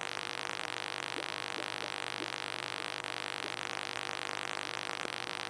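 Steady hiss with a low, even hum from the running aquarium equipment, with a few faint short tones over it.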